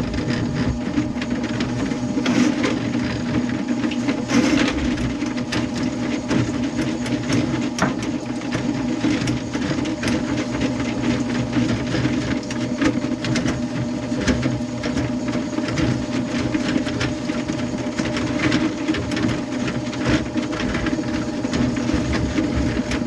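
Powered drain-cleaning machine running steadily, its motor humming while the snake cable rattles and clicks as it works through the clogged kitchen drain.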